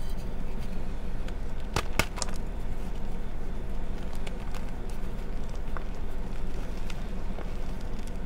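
Gym chalk reform blocks being crushed by hand: two or three sharp snaps about two seconds in as the blocks break, then scattered soft crunches and crackles as the chalk is squeezed into crumbs and powder.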